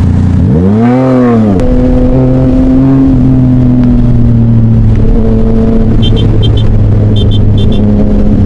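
Yamaha Tracer motorcycle engine revved once about half a second in, its pitch rising and falling back within about a second, then running steadily at motorway speed. A few short high chirps come in pairs around six and seven seconds in.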